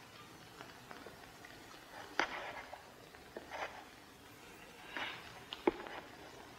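A few irregular footsteps and light knocks, spaced about a second or more apart, the sharpest knock near the end.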